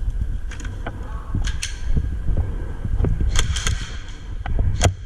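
Airsoft gunfire and gear noise: about eight sharp cracks at irregular intervals, a couple in quick pairs, the clearest near the end, over a steady low rumble.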